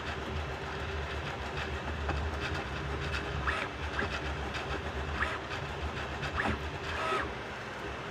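Bambu Lab A1 Mini 3D printer running a print: a steady low motor hum with short whirring chirps from the stepper motors as the print head moves. The hum drops off a little about seven seconds in.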